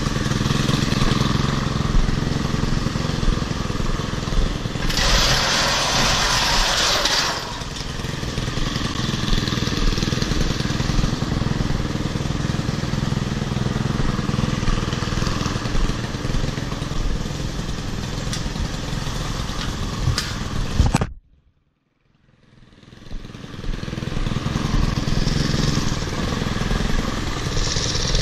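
Stihl KM90R kombi engine with its articulating hedge trimmer attachment running steadily at working speed, a small 4-MIX engine. A loud hiss rises over it for about two seconds around five seconds in. About 21 seconds in the sound cuts out abruptly for about a second, then fades back in.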